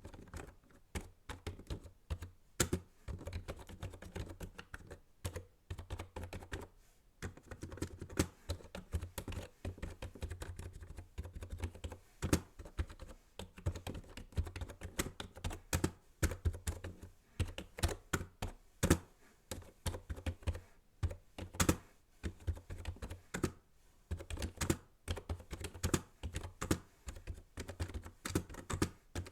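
Typing on a computer keyboard: rapid runs of key clicks with short pauses between them.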